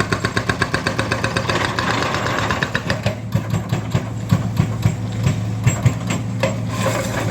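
Heavy demolition machinery with its diesel engine running steadily and a rapid, even mechanical hammering of about nine blows a second. The hammering stops about three seconds in, after which irregular clanks and knocks of broken concrete and metal sound over the engine hum. It is extremely loud.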